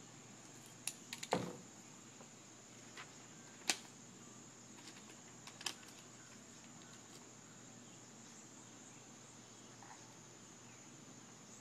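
Scattered sharp clicks and taps, a second or more apart, the loudest about a second in, over a faint steady high-pitched tone.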